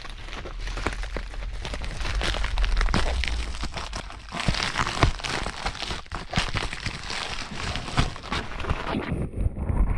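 Flashlight packaging being handled and unwrapped: continuous crinkling and rustling with many sharp clicks and taps.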